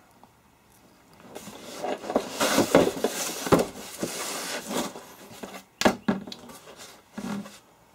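A cardboard box being laid flat on a workbench and its lid opened: scraping and rustling of cardboard with several sharp knocks, the loudest about six seconds in.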